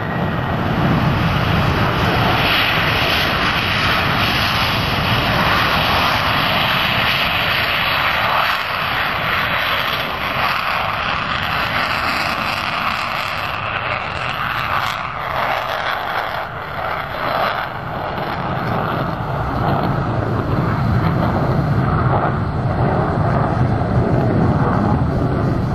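Twin Pratt & Whitney TF30 turbofans of a RAAF F-111 jet running loud and steady, easing slightly past the middle and building again near the end.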